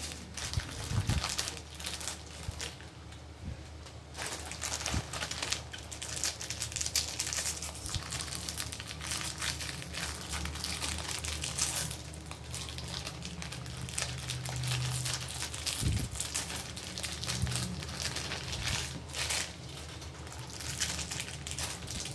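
Plastic snack-cake wrappers crinkling and tearing as individually wrapped Fudgee Bar chocolate cakes are opened and peeled one after another.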